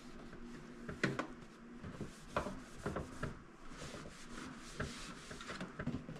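Items being handled in a refrigerator: a few separate light knocks of things set down, with scraping and rubbing between them.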